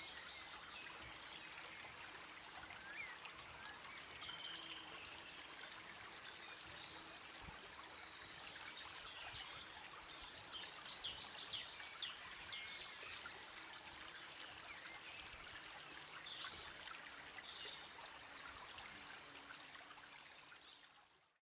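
Nature-sound background track of a trickling stream with birds chirping, a cluster of louder chirps about halfway through; it fades out at the end.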